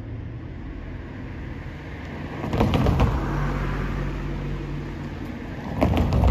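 Cars driving over a railroad grade crossing, tyres clunking in quick pairs over the rails. One passes about two and a half seconds in and another near the end, over a steady low traffic rumble.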